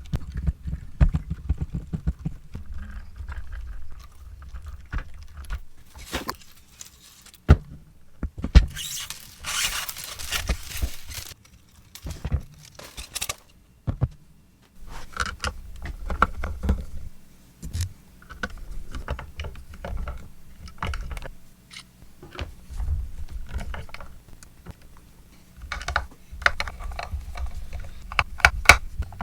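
Hand-work noises on an electric guitar: scattered clicks, clinks and knocks of small metal hardware and hand tools, with a longer rustling scrape about nine seconds in, over a low hum.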